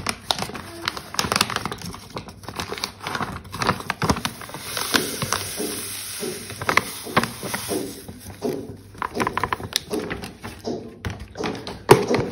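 Calgon water-softener powder poured from a plastic bag into a clear plastic storage box: the bag crinkles and crackles, the granules hiss as they slide out, steadiest about halfway through, with taps and knocks on the plastic box.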